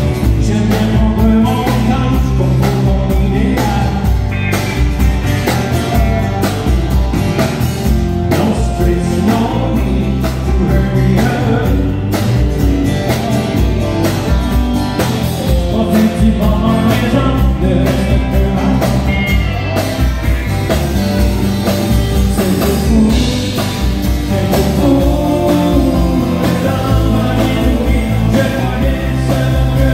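Live country band playing: a man singing over acoustic guitar, electric guitars, bass and drums.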